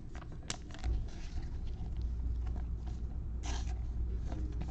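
Trading cards being handled: light scrapes and clicks of card stock, one louder brushing sound about three and a half seconds in, over a low steady rumble that starts about a second in.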